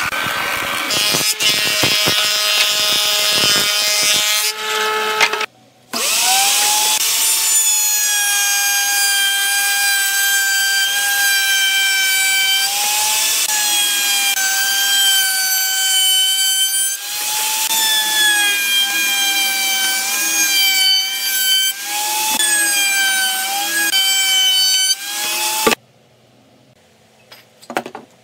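A wood planer runs with a board feeding through. After a brief break a table saw rips a board, its blade whine steady but sagging in pitch several times as the cut loads it. Near the end it drops to quiet, with a few light clicks of metal pipe clamps being handled.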